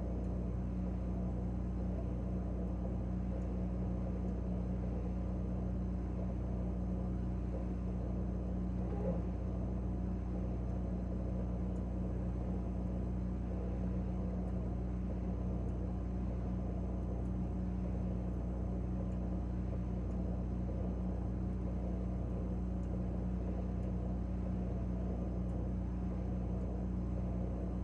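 Steady low hum of a running refrigerator, several constant tones at an even level, with one faint brief sound about nine seconds in.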